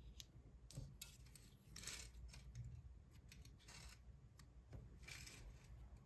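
Faint crinkling and small clicks of hands handling chocolate-egg foil wrappers and plastic toy capsules, in three short rustles with scattered clicks between.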